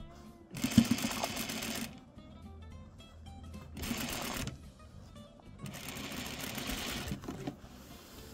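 Sewing machine stitching a seam through quilt layers in three short runs, each about a second long, with pauses between them.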